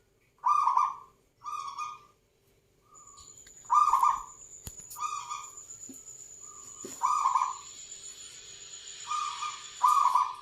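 Zebra dove (perkutut) cooing in a string of short, low, resonant phrases, the humming coo that keepers prize. A thin, steady high whine runs alongside from about three seconds in.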